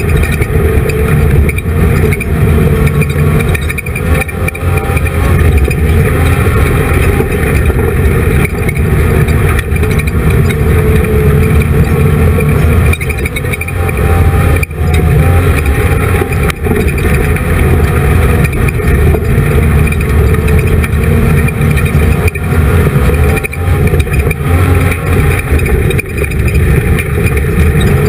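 Race car engine running hard at racing speed, heard close up from inside the car, with a few brief dips in level along the way.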